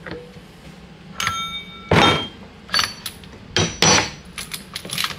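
Metal clanks and clinks from a hose crimping machine being worked and the crimped hose fitting handled. A ringing clink comes about a second in and the heaviest knock about two seconds in, followed by several more knocks and a quick run of lighter clicks near the end.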